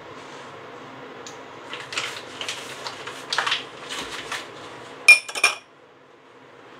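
Crinkling and rustling of a foil butter wrapper being folded up, followed by two sharp, ringing clinks of a utensil against cookware in quick succession, about five seconds in.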